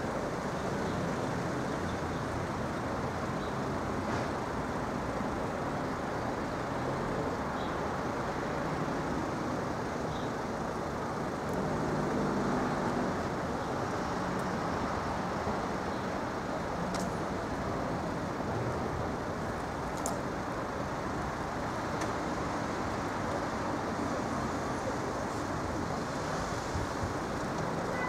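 Steady road-traffic noise, swelling briefly about twelve seconds in.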